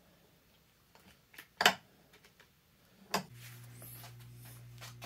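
A few light clicks and taps as a gasket is pressed down over the alignment pins on the aluminium crankcase of a Rotax 951 two-stroke engine, the sharpest about a second and a half in. From about three seconds in a steady low electrical hum sets in.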